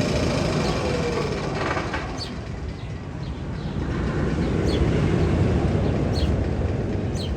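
Magnum XL-200 steel roller coaster train rumbling along its track, with a short high descending squeak about every second and a half.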